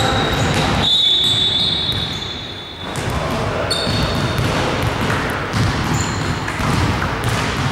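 Indoor basketball game: a ball bouncing on the hardwood court amid player noise, with a long, steady referee's whistle blast about a second in, and a shorter high tone a little later.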